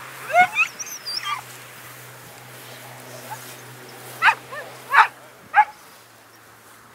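A dog yelping and whining in short, high calls that bend in pitch: a quick cluster right at the start, then three sharp yelps between about four and six seconds in.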